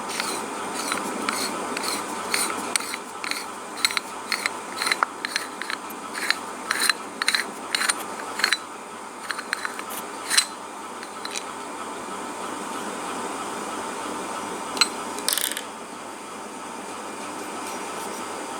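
Metal tool clicking against the body of a pneumatic quick exhaust valve as it is taken apart: a run of small sharp clicks, about two or three a second, for some ten seconds, then a pause and two louder clicks near the end.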